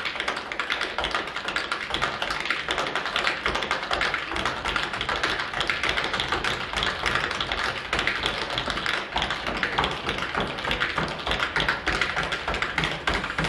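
Metal tap shoes striking a wooden floor in a dense, rapid, unbroken stream of taps from a group of tap dancers.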